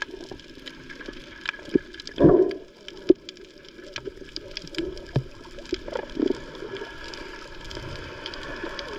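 Underwater sound through an action camera's housing: a muffled wash of water and bubbles from snorkelers kicking, with scattered clicks and knocks and a louder muffled surge about two seconds in.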